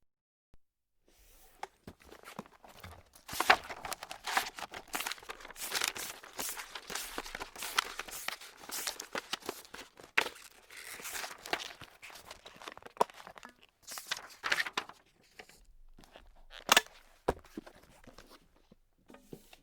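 Paper being crumpled and crinkled in a dense run of crackles and sharp snaps. It starts about a second in, eases off around three-quarters of the way through, then picks up again with one loud crackle near the end.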